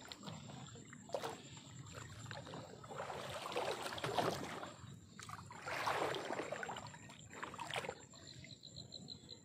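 Water sloshing and splashing around a small boat being paddled through shallow water, in two longer swells about three and six seconds in, with a few sharp knocks.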